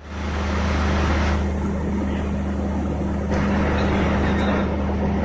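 Diesel locomotive engine running steadily: a loud, constant deep hum over dense mechanical noise, with no change in pitch.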